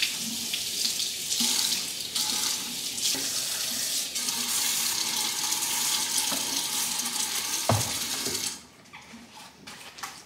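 Kitchen faucet running into the sink while a plastic refrigerator drawer is rinsed under the stream, with a single knock about three-quarters of the way through. The water stops about 8.5 seconds in, leaving only a few faint handling clicks.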